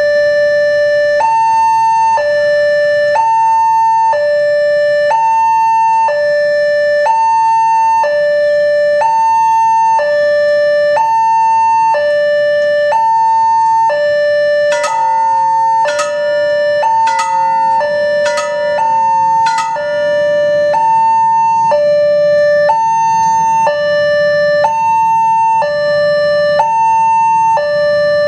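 Railway level-crossing warning alarm sounding as the barriers close, a loud electronic two-tone signal alternating low and high, about one high-low cycle every two seconds. Around the middle, sharp ringing strikes about once a second and a second overlapping tone join for several seconds.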